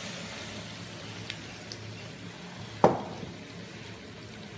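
Diced potatoes frying in a deep pan of hot olive oil for a Spanish potato tortilla: a steady sizzle that slowly dies down. A single sharp knock a little under three seconds in is the loudest sound.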